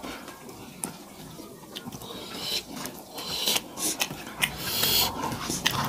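Two people eating rice and curry with their hands: wet chewing and lip-smacking in short, irregular bursts, with fingers mixing rice on steel plates.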